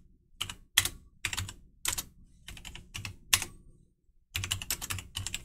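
Keystrokes on a computer keyboard typing terminal commands, sharp separate clicks at an uneven pace, with a short pause about four seconds in followed by a quick run of keys.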